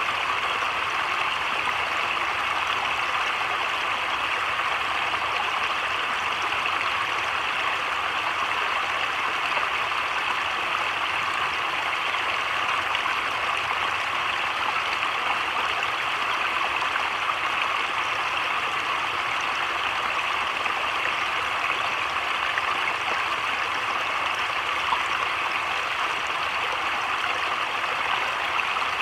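Heavy rain falling on a creek and the surrounding leaves: a steady, even hiss with no thunder.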